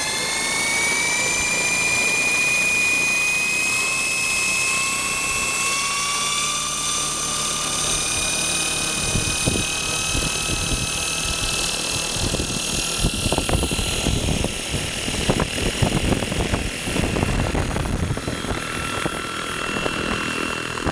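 RC helicopter's motor and main rotor whining, rising in pitch over the first couple of seconds as it spools up and then holding steady. From about halfway through, the rotor downwash buffets the microphone with gusty rumbling as the helicopter lifts off.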